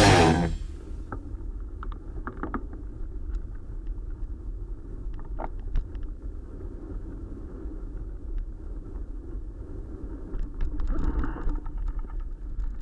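Backing music cuts off about half a second in. It leaves the muffled sound of a moving bicycle: a low wind rumble with light rattles and clicks from the bike, a little louder near the end.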